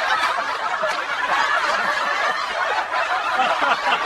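A room full of people laughing together, a dense, steady wash of many overlapping laughs.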